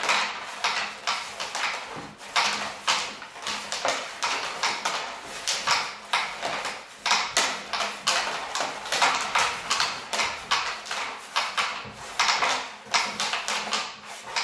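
Pucks being shot with the elastic bands of a homemade wooden pucket board, with rapid, irregular clacking as they strike the board's wooden walls, the central divider and each other, several knocks a second.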